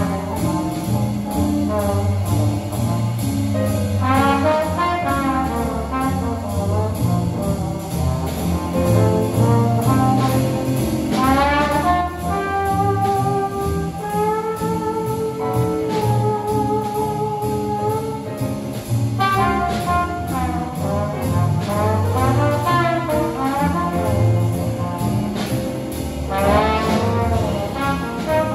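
Small jazz band playing live: trumpet, trombone and saxophones over piano, double bass and drums. The horns play melodic lines with quick rising runs, and there are long held notes about halfway through.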